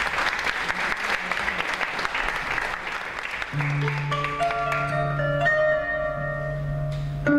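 Audience applause that thins out. About three and a half seconds in, a kanun starts playing: plucked zither notes ringing over a pair of low notes held underneath.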